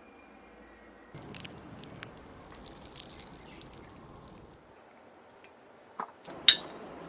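Soft squishing and small clicks of a utensil working through moist chocolate cake, with one sharp tap about six and a half seconds in.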